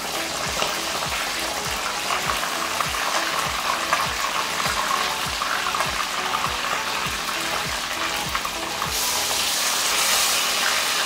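Whole fish deep-frying in hot oil in a wok: the oil sizzles and bubbles steadily while a slotted spoon turns the fish, and the sizzle grows louder and brighter about nine seconds in. A low thump about twice a second runs underneath.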